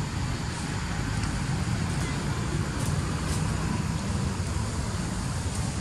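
A steady low rumble with no clear events, and a few faint ticks about three seconds in.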